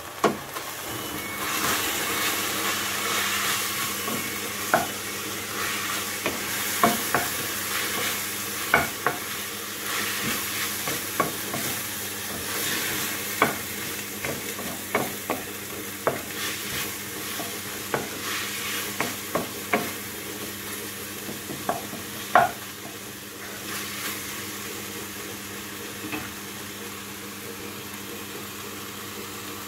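Ground beef sizzling as it fries in a nonstick pan, louder in the first few seconds. A wooden spatula stirs it with frequent sharp knocks and scrapes against the pan, fewer toward the end.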